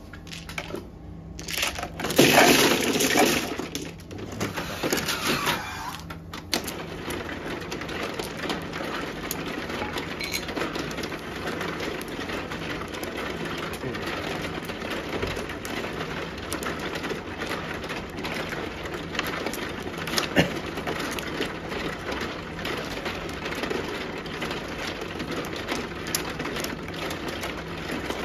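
Mahjong tiles clattering loudly twice as the used tiles go down into the centre of an automatic mahjong table. After that comes the steady churning noise and low hum of the table's shuffling mechanism, with many small clicks of tiles being taken and set down.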